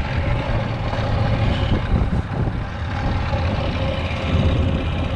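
Wind buffeting the microphone on a moving golf cart, a heavy uneven rumble, with the cart's engine running steadily underneath.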